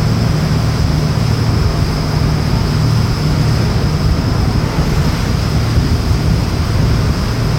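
A boat's engine running steadily under way, with wind buffeting the microphone and water rushing along the hull, and a thin steady high whine.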